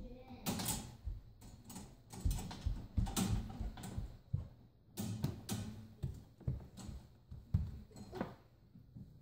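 Toddler's hands rattling and knocking a white metal baby safety gate: irregular clacks and taps, several a second, with music playing underneath.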